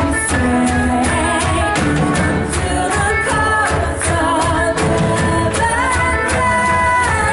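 Live church worship band playing an upbeat song over a steady drum beat, with sung vocals carrying the melody.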